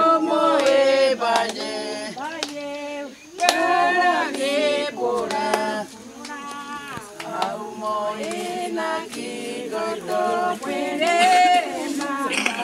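A choir singing, several voices together in harmony with long held notes and no clear instrumental accompaniment.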